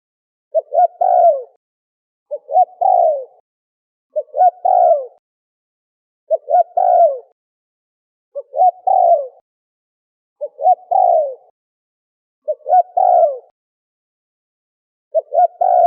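Spotted dove (terkukur) cooing: a short rhythmic phrase of a few quick notes ending in a longer falling coo, repeated eight times, about one every two seconds.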